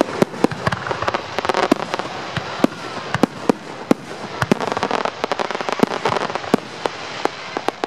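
Aerial fireworks shells bursting: an irregular string of sharp bangs, sometimes several a second, with a dense cluster about halfway through.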